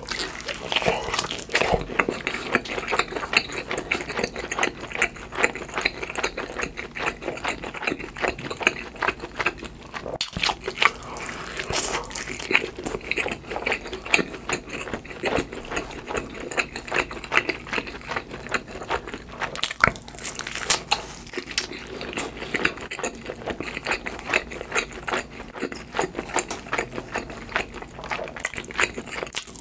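Biting and chewing a large slice of cheese pizza with a charred crust: a steady run of wet, crackly chewing clicks.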